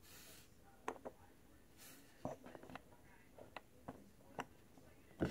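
Faint, irregular light clicks and taps of plastic Zobrist Cube polycube pieces being handled and set against one another on a wooden tabletop, about eight in all, the loudest just before the end.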